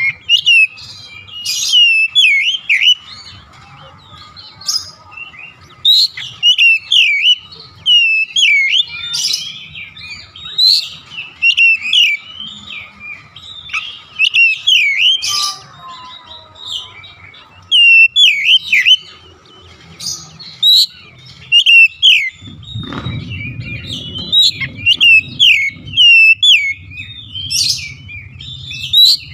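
Oriental magpie-robin singing: long runs of rapid, varied whistles and chirps, short notes sweeping up and down, broken by brief pauses.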